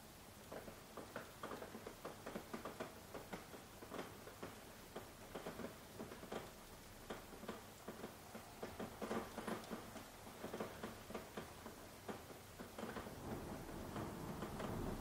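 Soft rain: irregular drops tapping and pattering over a faint hiss. A low steady rush rises near the end.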